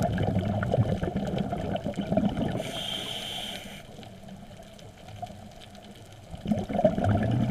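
Scuba regulator breathing heard through the camera housing: a long gurgle of exhaled bubbles, a short hissing whine of inhalation about three seconds in, then a quieter pause before the bubbles start again near the end.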